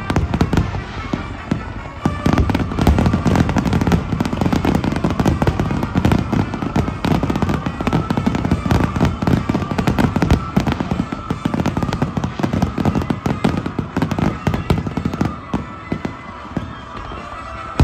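A dense barrage of aerial firework shells launching and bursting, many rapid overlapping bangs with no pause, easing slightly near the end.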